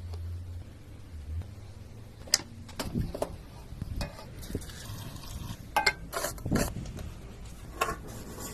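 Scattered light clinks and short scrapes of small hard objects being handled, a few sharp ticks among them, over a faint low hum that fades out after a second or so.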